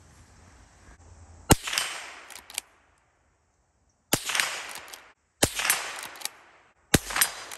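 Henry lever-action .22 LR rifle fired four times, the shots about one to two and a half seconds apart, each trailing off in a short echo.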